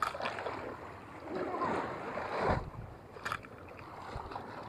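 Small sea waves lapping and splashing against the shore, with one swell about two seconds in. A couple of short clicks come from the fishing rod being handled.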